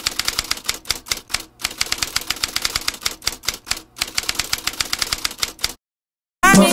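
Typewriter sound effect: rapid key clicks, about seven a second, in quick runs with short breaks, keeping pace with on-screen text being typed out. The clicking stops about a second before the end and music starts just after.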